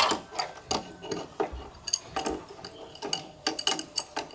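Metal tools and parts clinking and tapping irregularly, several sharp knocks a second, some with a short metallic ring.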